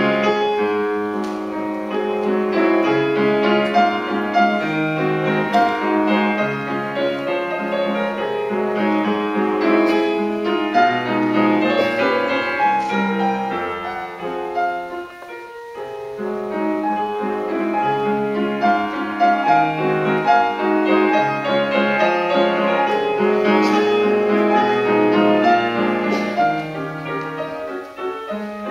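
Classical piece played on a grand piano, with a short break in the phrasing about halfway through before the playing resumes.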